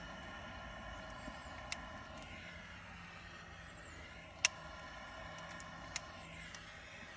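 Faint steady outdoor background with a few sharp clicks, the loudest about four and a half seconds in.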